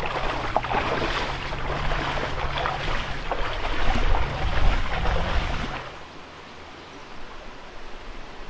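Legs in rubber chest waders wading through shallow river water, a run of irregular splashing and sloshing steps. It stops suddenly about six seconds in, leaving only a faint steady hiss.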